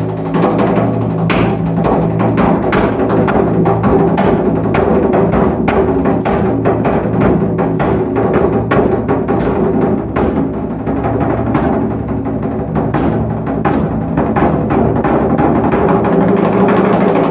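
Solo drumming in a fast, dense rhythm over a sustained low drone. Sharper, bright high-pitched accents, like wood-block or rim strikes, come in about six seconds in.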